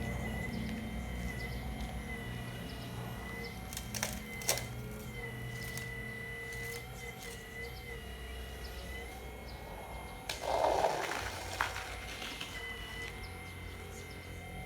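Hydraulic pump of a radio-controlled CAT excavator model, a steady whine that shifts slightly in pitch as the controls work the hydraulics. There are two sharp clicks about four seconds in and a brief gritty rush about ten seconds in.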